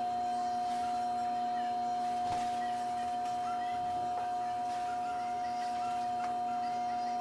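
Gold T-bar vibrating facial massager buzzing with a steady, unbroken hum, with a few faint clicks over it.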